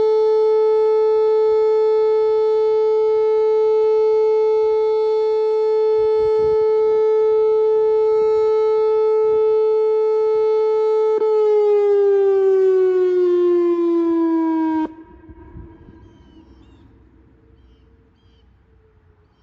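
Whelen WPS 2909 electronic outdoor warning siren sounding its Alert signal: a loud, steady tone held for about eleven seconds, then the pitch falls for a few seconds as it winds down and cuts off abruptly, leaving a faint, fading echo.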